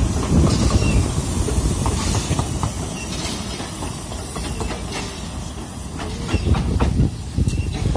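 Narrow-gauge train running on the rails: a steady low rumble with scattered sharp clicks from the wheels, and a few short high squeaks.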